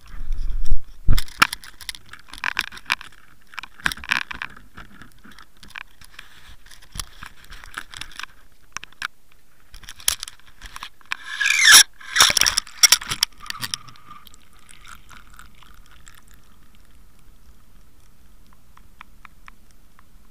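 Handling noise of a Water Wolf underwater fishing camera hanging on its line: knocks, scrapes and rattles against the boat's metal deck and rail. About twelve seconds in comes a loud rushing burst. After that the sound turns faint and muffled, with a few light ticks, as the camera sinks underwater.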